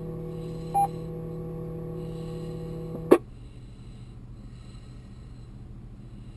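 Amateur-radio receiver on a repeater right after a transmission ends. A steady hum from the open carrier, with a short beep just under a second in (the repeater's courtesy tone). About three seconds in a click marks the carrier dropping and the squelch closing, leaving a fainter low hum and hiss.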